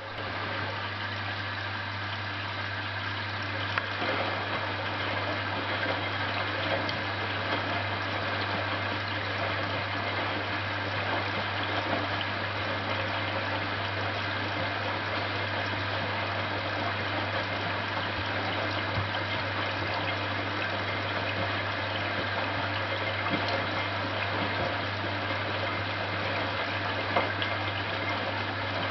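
A Hotpoint NSWM 843C washing machine draining, its drain pump running steadily with water rushing through it over a constant low hum. It starts suddenly and holds even throughout.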